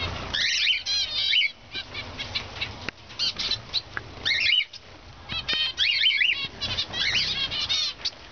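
Many aviary birds, cockatiels among them, chirping and calling over one another: quick, short chirps in busy overlapping spells with brief lulls.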